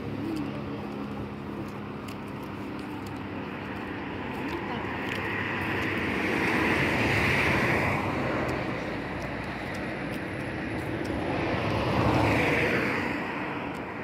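Road traffic with no one speaking: two vehicles pass, each a rush of tyre and engine noise that swells and fades, the first about six to eight seconds in and the second about twelve seconds in.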